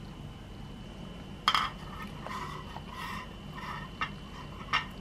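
Kitchenware clinking and knocking: a plastic ladle against a stainless steel pot of curry sauce and bowls. One sharp knock comes about a second and a half in, softer clatter follows, and two more sharp knocks come near the end.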